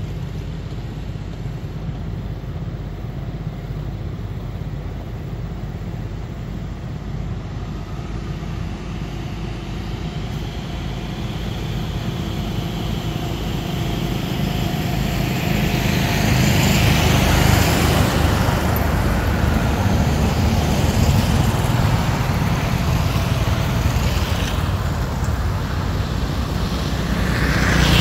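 Steady engine noise of passing motor traffic, growing louder from about halfway through and swelling again near the end.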